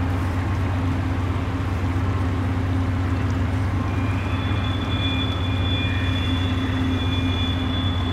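Canadian Pacific freight train rolling past, with a steady low rumble of its cars on the rails. From about four seconds in, a thin, high-pitched wheel squeal joins the rumble.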